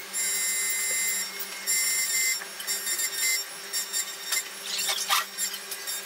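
Xhorse Dolphin XP-005 automatic key cutting machine milling a key blade: a steady motor hum, with a high-pitched whine that comes and goes as the cutter works along the blade.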